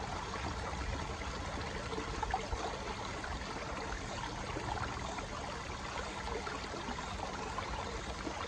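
A small stream running and splashing over stones at a little drop, a steady rush of water.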